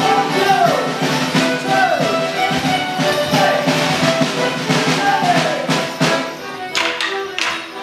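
Band playing a Border Morris dance tune with a steady beat. Near the end come sharp clacks of the dancers' wooden sticks striking together.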